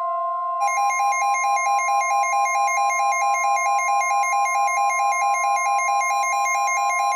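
Electronic emergency alert tones: a steady high alert tone, with a fast warbling electronic alarm laid over it from about half a second in until just before the end.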